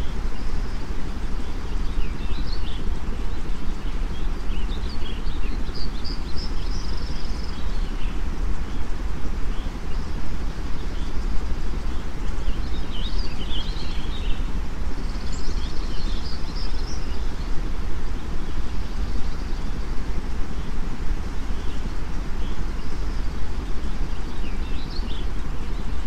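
Steady white-noise rush, heaviest in the low end, with small birds chirping and twittering over it at intervals.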